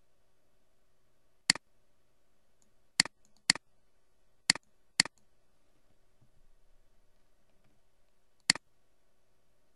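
Computer mouse button clicked six times: two pairs of quick clicks about half a second apart, with single clicks before and after them.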